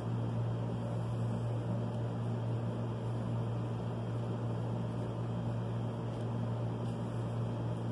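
Steady low hum over an even hiss of background noise, unchanging throughout, like a fan or air-conditioner motor in the room.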